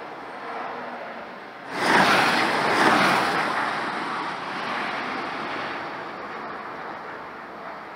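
Electric Porsche Macan driving past with no engine note, only tyre and wind noise: a sudden swell about two seconds in, peaking twice, then fading away over the next few seconds.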